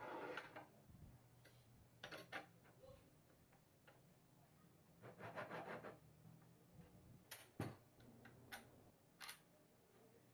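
Scattered light clicks and knocks, with two short clattering bursts, of small parts and tools being handled; one sharper knock comes about three quarters of the way through.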